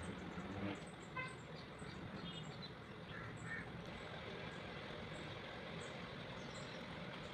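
Outdoor ambience: a steady low rumble with scattered short, high bird chirps, and a brief pitched call about a second in.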